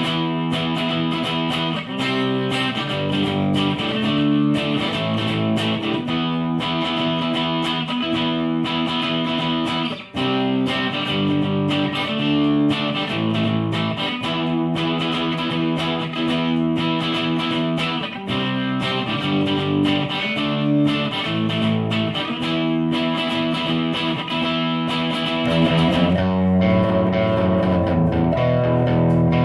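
Electric guitar played through a Line 6 POD Pro amp modeler, chords and riffs changing about every second. The low end grows louder near the end.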